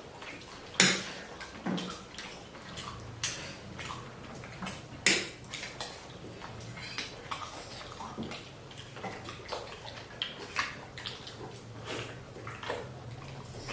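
Eating chicken thukpa noodle soup: spoons and utensils clinking and scraping against bowls, with slurping of noodles and broth. The loudest clinks come about a second in and about five seconds in.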